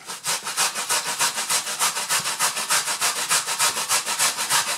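Peeled malanga root being grated by hand on a stainless steel box grater: fast, even scraping strokes, several a second, starting abruptly and keeping a steady rhythm.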